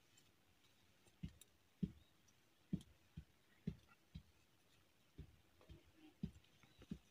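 Faint, irregular knocks and clicks of dry twigs being handled and pushed into a small wood fire, about a dozen in all.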